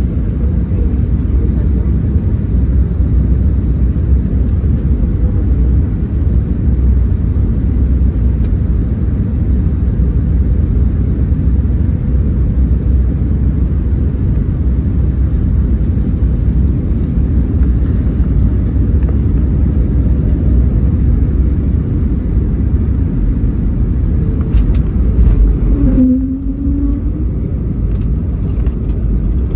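Airbus A321neo cabin during the landing: a loud, steady low rumble of engines and airflow. About 26 seconds in the rumble drops suddenly, and a brief tone follows.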